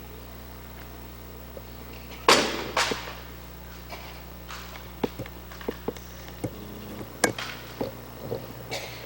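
Rifle drill handling: two loud sharp strikes in unison about two seconds in, half a second apart, then a string of separate sharp clicks and knocks as the rifles are slapped, caught and set down.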